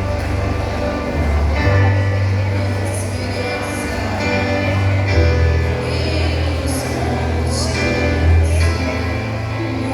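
Gospel worship song played by a live band with strong bass and cymbals, with a vocal group singing, in a large hall.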